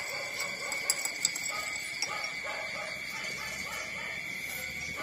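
Newborn puppies nursing on their mother, making small repeated squeaks and grunts with a few sharp suckling clicks in the first second and a half. A steady high-pitched tone runs underneath.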